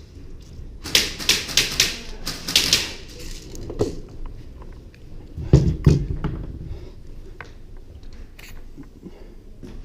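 Airsoft gunfire: a quick run of sharp cracks, several shots over about two seconds starting a second in, followed later by a couple of dull thumps.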